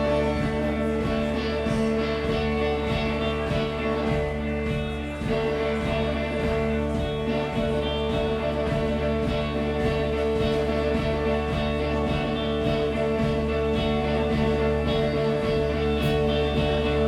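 Live rock band playing an instrumental passage without singing: electric guitars over bass and drums, with steady held notes.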